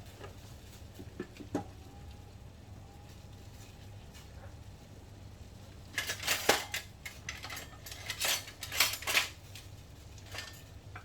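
Metal kitchenware clattering: a few light clicks, then two bunches of sharp clinks and knocks of utensils against a cooking pan about six and eight seconds in.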